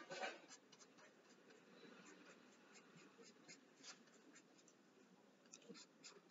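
Pencil scratching on paper in short, irregular shading strokes, faint, with a louder scrape right at the start.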